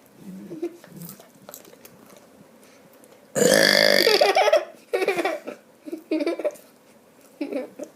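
A boy burping on purpose: one loud, drawn-out burp lasting about a second, starting about three and a half seconds in, followed by a few shorter, quieter bursts.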